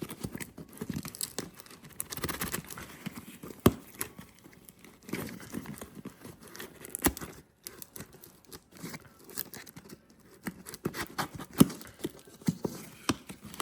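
Packaging being opened by hand: tearing, crinkling and rustling in irregular bursts, with scattered sharp clicks and knocks, a few of them louder.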